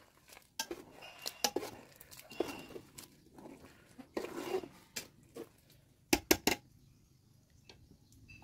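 Metal ladle stirring broth in a metal cooking pot, clinking and scraping against the pot's sides, with three sharp knocks on the pot in quick succession about six seconds in.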